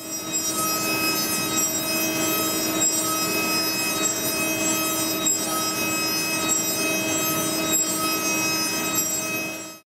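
Four-flute ceramic end mill at high spindle speed milling Inconel 718: a steady, high-pitched machining whine of several tones over a cutting hiss, dipping briefly about every two and a half seconds and fading out near the end.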